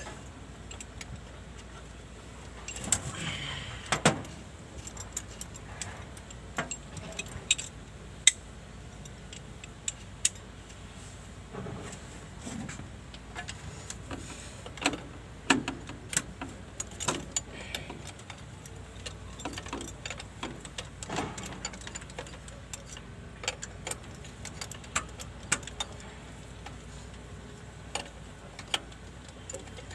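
Scattered metal clinks and knocks of tools at work on an excavator engine, irregular, with a few louder knocks, over a low steady hum.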